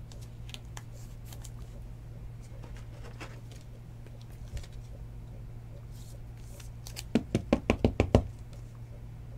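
A quick run of about seven sharp plastic clicks near the end, a little over a second long, as a trading card is fitted into a rigid clear plastic card holder. Fainter handling clicks come before it, over a steady low hum.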